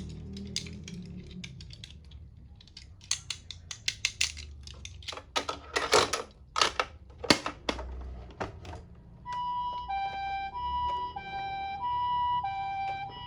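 A run of sharp clicks and knocks, loudest in the middle, then about nine seconds in a toy ambulance minicar's electronic siren starts. The siren alternates evenly between a high and a low note, with a buzzy tone.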